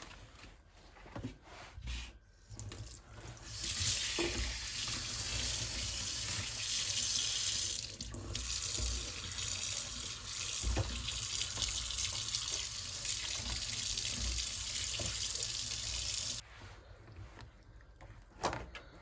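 Kitchen tap running into a sink, starting a few seconds in, briefly broken about eight seconds in, then shut off suddenly near the end, with a few knocks from handling things at the sink.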